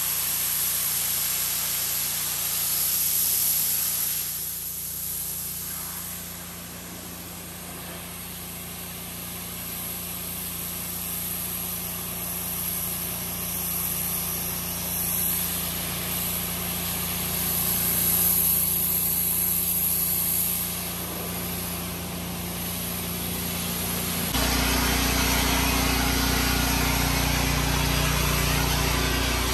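Pressure washer spraying a concrete patio, a steady hiss of high-pressure water over the hum of the machine, rising and falling in loudness as the wand moves. About 24 seconds in it changes abruptly to a louder, even rush of water with a stronger low hum.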